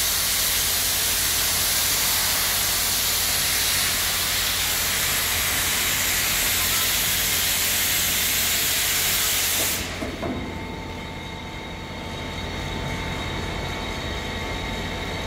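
A steady, loud hiss over the low hum of a running CNC lathe. The hiss cuts off suddenly about ten seconds in, leaving the hum and a faint steady whine.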